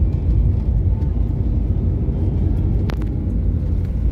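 Steady low road and engine rumble heard inside a moving car's cabin, with one short click about three seconds in.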